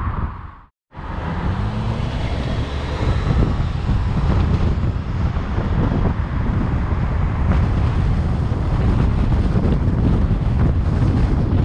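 Steady road and wind noise of a car driving, a dense low rumble with wind buffeting the microphone. It drops out briefly under a second in, then resumes.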